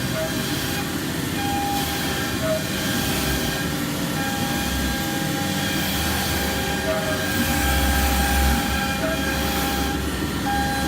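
CNC router running a cutting job: a steady machine drone with a spindle whine that comes and goes as the head cuts and moves.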